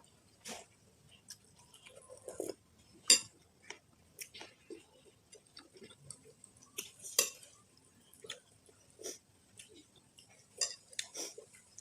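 Eating noodle soup: a spoon and fork clink against the bowl in scattered sharp knocks, the loudest about three seconds in and about seven seconds in, between softer chewing and slurping sounds.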